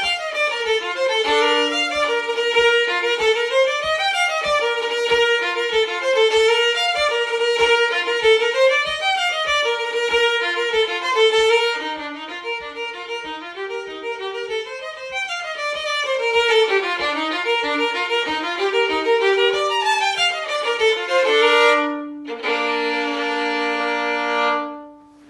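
Solo fiddle playing a fast tune in quick runs of notes, over a steady low tap about twice a second that keeps the beat. It goes softer for a few seconds in the middle. Near the end it stops on a long held chord that dies away.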